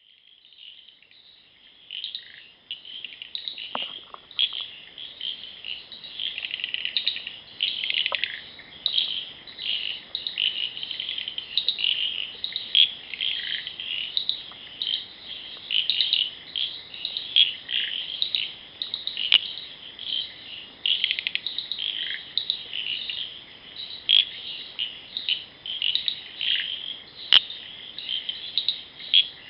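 Night-time chorus of small animals: a dense overlapping mass of short high chirps fades in over the first two seconds and keeps on steadily, with a few faint clicks.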